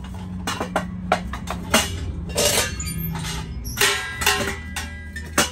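Metal clanks and clinks as the hinged top of a steel beer-keg retort is flipped open and handled, opening it to reach the finished biochar. There are a string of sharp knocks, some briefly ringing, over a steady low hum.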